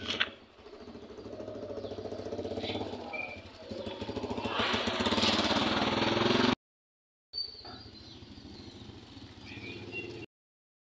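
An engine running with a rapid pulsing, growing louder over several seconds until a break in the recording cuts it off; a quieter hum follows.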